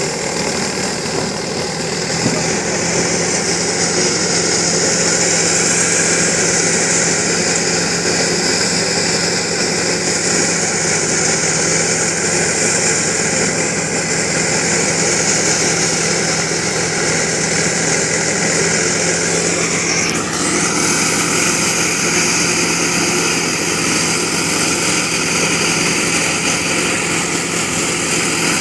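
Wheat-harvesting machine running steadily: the engine hums with a high whirring note over it. About twenty seconds in, the pitch dips briefly and then settles at a slightly different note.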